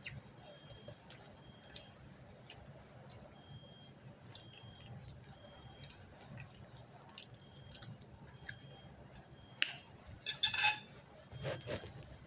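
Quiet chewing and wet mouth clicks of someone eating a snack, with a short louder clatter near the end.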